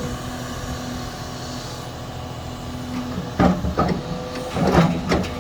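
Skid steer engine running steadily inside the cab, with a few sharp knocks in the second half, which fit big raindrops striking the cab in a downpour.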